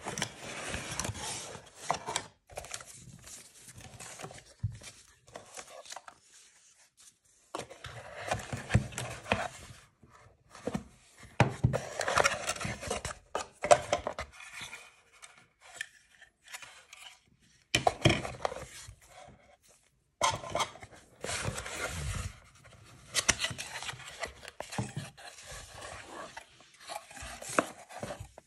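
Cardboard box being opened and its contents handled: irregular rustling and scraping of cardboard in bursts, with sharp knocks and clicks as parts are moved.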